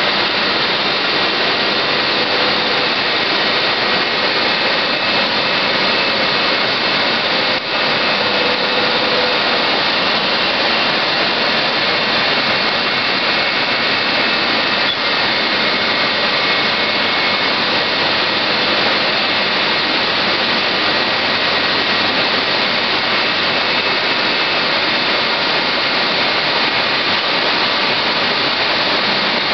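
BSL 204 band-knife foam-cutting machine running steadily while cutting a rigid foam slab: a loud, even mechanical noise with faint steady tones over it.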